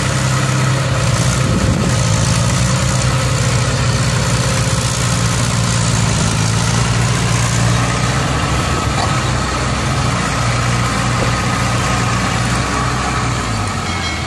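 Diesel tractor engines running steadily under load: a John Deere 5103 towing a Mahindra Arjun Ultra 555 that is stuck in paddy-field mud. The engine sound eases off a little near the end.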